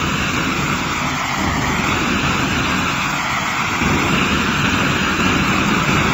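Steady hiss and rumble of an old cassette tape playing with no voice on it.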